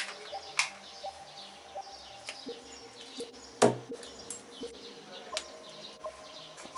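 Sharp clicks and knocks of G-Shock resin watches being picked up and set down on a tabletop, the loudest a dull thud a little past halfway. Faint bird chirps sound in the background.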